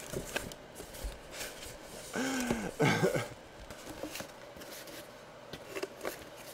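Faint taps and clicks of a cardboard box being handled and set down on a table, with a brief low hum from a voice about two seconds in.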